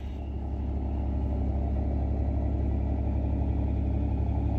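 The engine of a 1965 Ford F100 pickup idling: a steady low rumble with an even, fine pulse.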